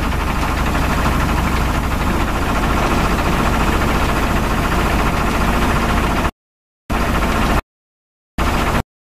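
HF150T water well drilling rig running, its engine giving a steady heavy hum with a hiss above it. The sound cuts off abruptly about six seconds in, returns briefly and cuts off again twice.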